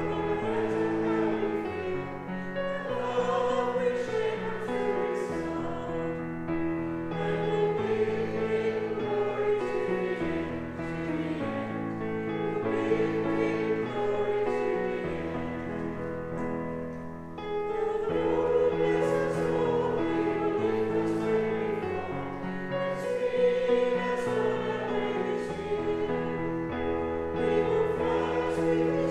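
A hymn sung by a choir or congregation with instrumental accompaniment. One verse ends, there is a short break about 17 seconds in, and the next verse begins.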